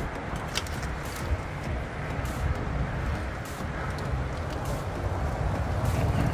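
A few light clicks of boiled crawfish shells rattling as a metal colander is scooped through a pot of them, over a steady low rumble.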